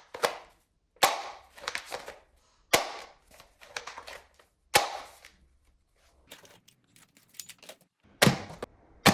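A series of sharp knocks and clacks, about one a second, with a run of lighter, quicker clicks in the middle: hard plastic toy gun parts being handled and knocked together.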